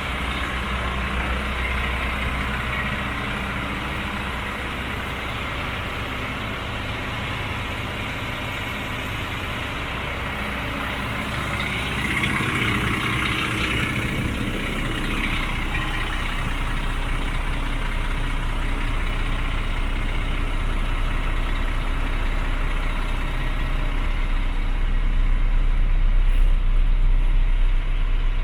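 DAF CF75 truck's 310 hp turbo diesel engine idling steadily, getting louder toward the end.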